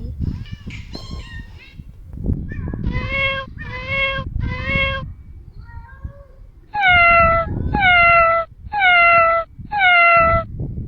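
Street cats meowing: a faint call, then three calls in a row, then four louder, higher-pitched meows about a second apart.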